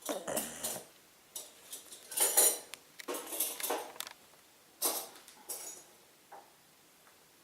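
A sleeping pet snoring: a run of irregular noisy breaths, each under a second, the loudest about two seconds in, dying away after about six seconds.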